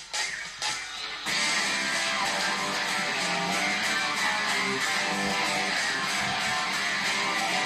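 Electric guitar strumming chords: a few separate chord stabs, then about a second in the sound jumps to steady, continuous rhythmic playing with a fuller body and a bass line underneath.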